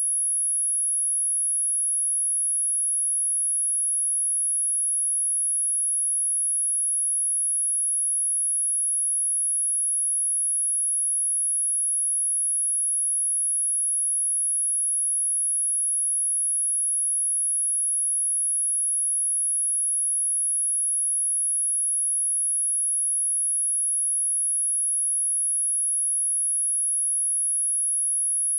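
A steady, high-pitched pure sine-wave test tone at 10721 Hz, held at one pitch and level without a break.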